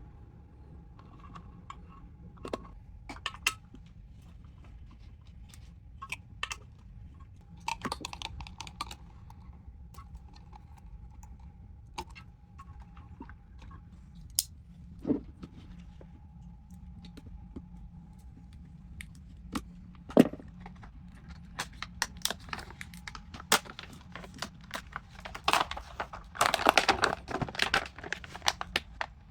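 Scattered clicks, taps and rattles of small hard objects being handled, with a louder stretch of rattling and rustling near the end. A faint steady whine sits underneath.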